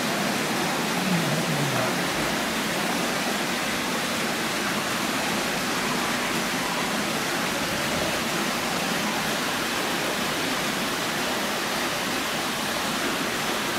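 Steady rush of water pouring into a fish pool, an even hiss that does not change.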